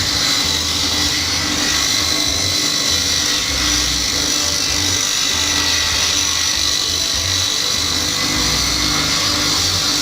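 Homemade table saw running steadily at speed: its motor and circular blade make a continuous high whine.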